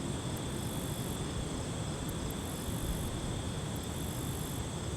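Steady chorus of night insects, a continuous high chirring, over a low rumble.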